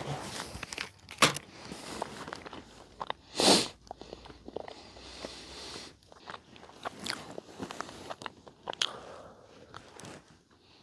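A person biting and chewing cheese close to the microphone: irregular crunches and clicks, with one louder burst about three and a half seconds in.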